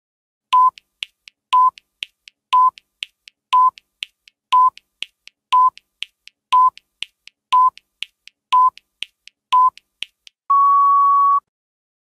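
Quiz countdown timer sound effect: ten short beeps of one pitch, one a second, with fainter ticks between them, then one longer steady beep as the count reaches zero.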